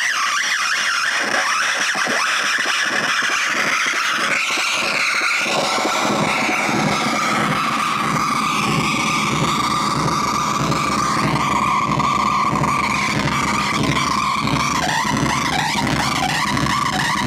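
Mixer feedback loop run through a digital delay pedal: loud, sustained squealing tones that shift in pitch and stutter with fast delay repeats. From about six seconds in, a low buzzing rumble joins the squeal.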